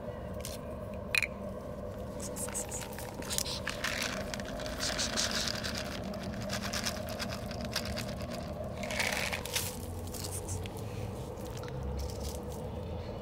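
Dry cat food kibble rattling and pattering out of a plastic bottle onto concrete and dry leaves, a pour lasting a few seconds from about four seconds in, with a few sharp clicks before it and a steady faint hum underneath.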